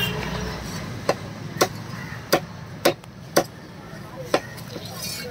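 About six sharp, irregularly spaced knocks of a heavy fish-cutting knife striking a hard surface, over roughly three and a half seconds.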